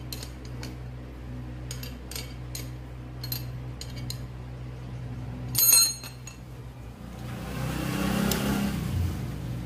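Light metallic clinks and taps of tools and metal gas-stove parts being handled, loudest a little before six seconds in, followed near the end by a few seconds of rustling, scraping noise, over a low steady hum.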